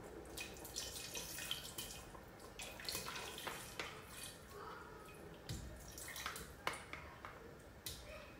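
Pickled jalapeños and their vinegar brine being scooped out of a can into a cooking pot with a kitchen utensil: irregular clicks and scrapes with splashes and drips of liquid.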